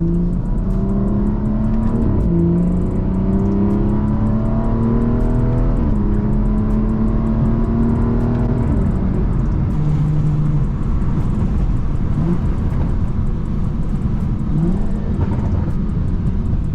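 BMW 340i's B58 turbocharged 3.0-litre inline-six, breathing through a resonator-deleted Valvetronic axle-back exhaust, accelerating through the gears. The engine note rises and drops back at upshifts about two and six seconds in, climbs again, then eases off after about nine seconds into a lower, steady drone.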